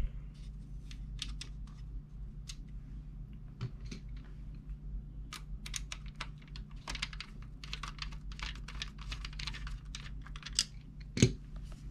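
Hand screwdriver driving screws into a Corsair SF450 power supply through a steel case frame: scattered small metallic clicks and scrapes, coming thick and fast from about five seconds in, then one sharp knock just before the end.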